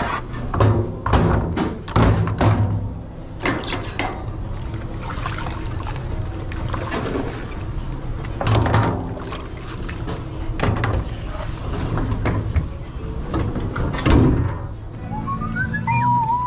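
Background music playing, with about a dozen scattered knocks and clatters like dishes and pans being handled at a kitchen sink.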